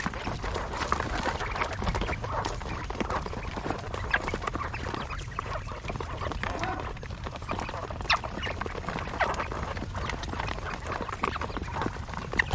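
Quail calling and chirping in many short, scattered notes over a steady low rumble.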